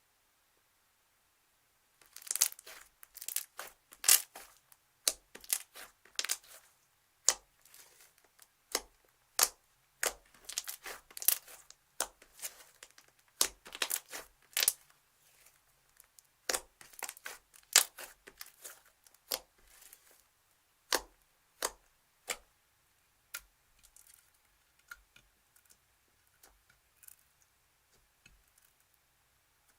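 Slime being squeezed and pressed, giving off sharp, irregular crackles and pops. They start about two seconds in, come thick at first, then thin out and grow fainter toward the end.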